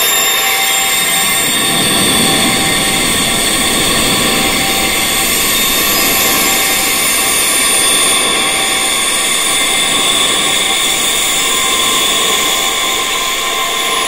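Wind chimes ringing densely and without pause: many overlapping, sustained metallic tones at many pitches over a steady hiss.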